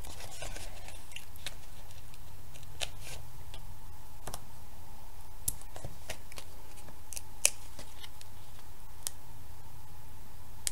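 Small pieces of cardstock being handled and pressed together by hand: sparse light clicks and paper rustles over a steady faint hum.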